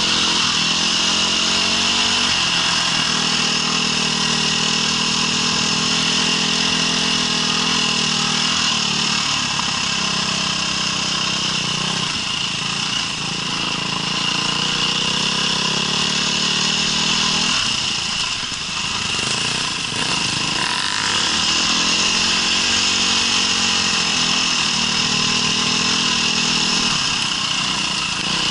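Small off-road vehicle engine running continuously under load while riding a trail, its revs rising and falling several times as the throttle is worked, easing off briefly twice.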